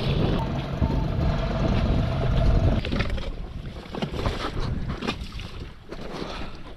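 Wind buffeting the microphone and water rushing as a small inflatable skiff runs across the water; about three seconds in it eases off to quieter water with a few light knocks as the skiff comes alongside the sailboat's stern.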